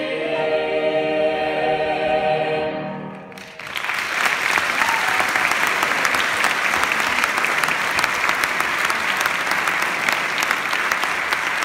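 High school choir holding a final sung chord, which cuts off about three seconds in. Audience applause then breaks out and continues steadily.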